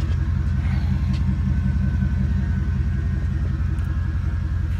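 Ford F-150 engine idling steadily, heard from inside the cab as a low, even rumble.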